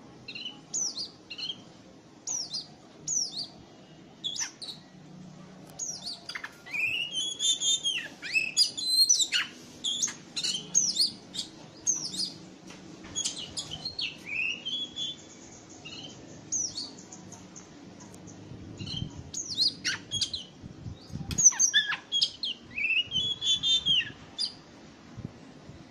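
Caged Oriental magpie-robin (kacer) singing: varied phrases of sharp whistled notes, many sliding down in pitch, given in loud runs with short pauses between them.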